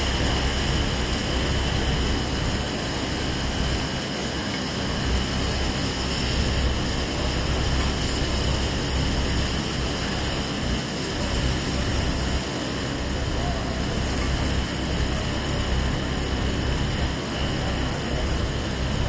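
Steady city traffic noise on a wet street: a constant low rumble under an even hiss, with no single event standing out.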